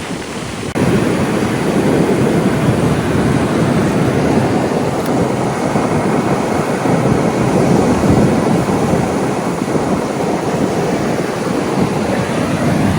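Wind buffeting the microphone over the rush of heavy ocean surf, a steady rumbling noise that jumps up suddenly a little under a second in.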